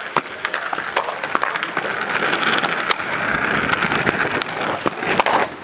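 Inline skate wheels rolling over rough concrete: a steady gritty rolling noise with many small clicks and knocks scattered through it.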